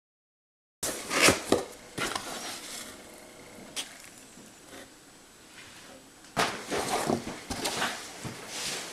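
Silence, then from about a second in a series of knocks, clicks and rustles from things being handled at close range, with a second busier stretch near the end.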